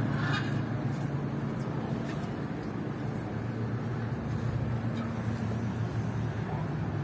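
Open-air city ambience: a steady low hum of traffic, with a few short bird calls near the start and once more near the end.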